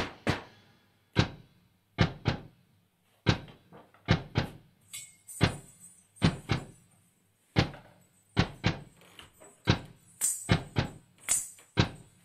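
Hand-held frame drum struck by hand or stick in separate, unevenly spaced hits, each ringing out briefly. From about five seconds in, the hits come closer together and a high jingling rattle joins them.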